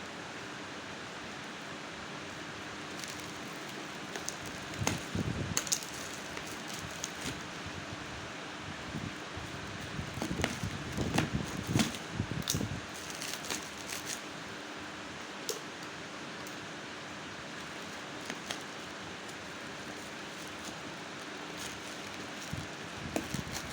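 Packaging handled during an unboxing: short spells of crinkling and clicking, a few seconds in, around the middle, and near the end, over a steady background hiss.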